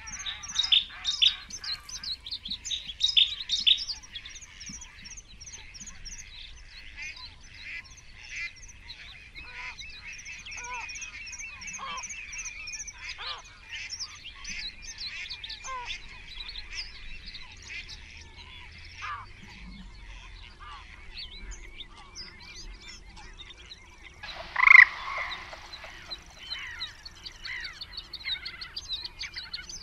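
Many birds singing and chirping at once, busiest in the first few seconds, with one much louder call from a single bird a little before the end.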